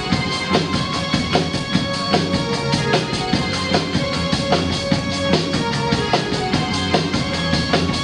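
Live recording of a synth-driven new-wave band playing an instrumental passage: a drum kit keeps a steady, even beat under held synthesizer notes and bass.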